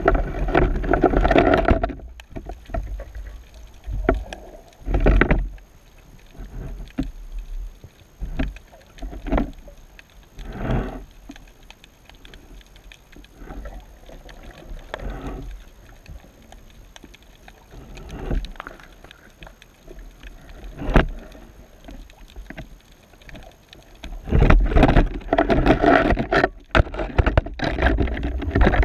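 Muffled surge and sloshing of moving seawater heard through a submerged camera housing. It comes in irregular swells, strongest near the start and again near the end, with a few sharp knocks against the housing in between.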